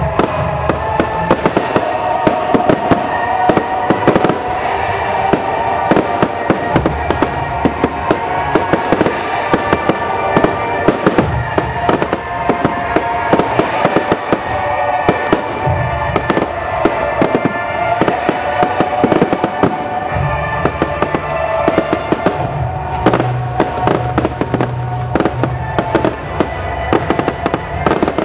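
Fireworks display: a dense, continuous run of bangs and crackling bursts, with deeper booms in the later part, over music playing.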